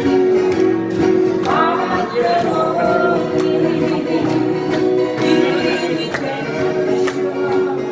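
Live acoustic guitar group playing a country song: several acoustic guitars strummed in a steady rhythm while men sing into microphones.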